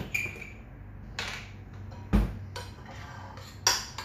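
A metal spoon clinking and knocking against a ceramic bowl while a spice marinade is mixed: a few separate clinks, one ringing briefly, and a heavier thud about two seconds in.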